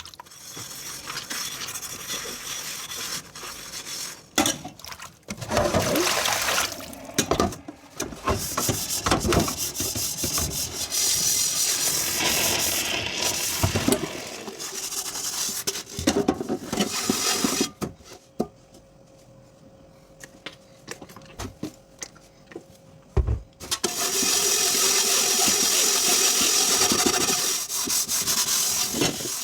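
Hand dishwashing: dishes being scrubbed and rubbed, with a quieter stretch past the middle and a knock, then a steady rush of running tap water for the last several seconds.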